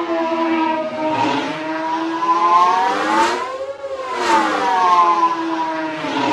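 Star Wars Vulture/Hyena droid starfighter engine whine: several pitched layers climb slowly for about three and a half seconds, break off briefly, then slide back down in pitch.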